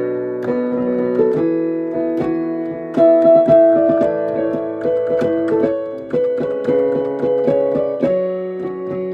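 Piano being played: a continuous run of struck notes and held chords in the middle register, getting louder about three seconds in.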